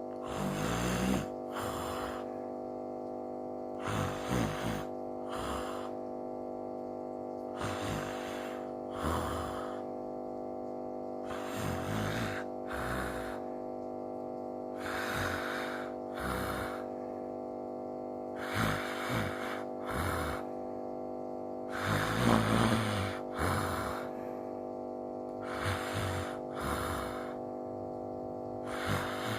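A person snoring in slow, regular breaths, one about every four seconds. Each is a longer snore followed by a shorter breath, over a steady hum.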